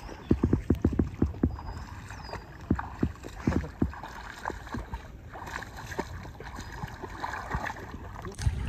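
Sloshing and splashing of feet wading through shallow, weedy floodwater: a run of irregular low splashes and thumps, most frequent in the first two seconds and sparser after.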